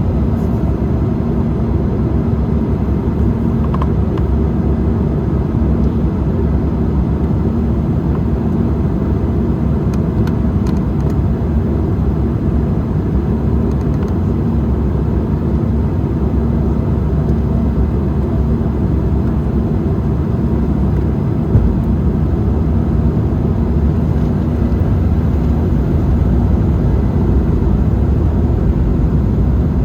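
Steady cabin noise inside an Embraer 190 airliner in flight: the drone of its two turbofan engines and the rushing airflow, with a steady low hum running under it. A brief thump stands out about two-thirds of the way through.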